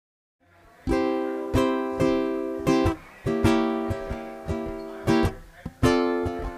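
Jazz baritone ukulele playing a solo intro: chords plucked one after another, each ringing out and fading before the next. It starts about a second in.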